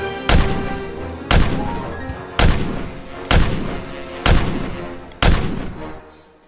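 Background music with a heavy booming drum hit about once a second, each hit ringing out over sustained tones; it dies away near the end before the next hit.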